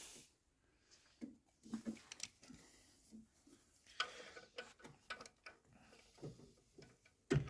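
Faint, irregular clicks and taps of hand tools, a ratchet and sockets, being handled on a vehicle's brake and hub assembly, with a sharper metallic knock near the end.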